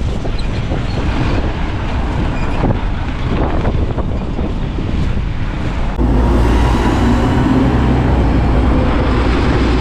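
Strong wind buffeting the microphone during a ride in a gale with light rain, a dense low rumble. About six seconds in it changes abruptly to a louder, steadier low rumble.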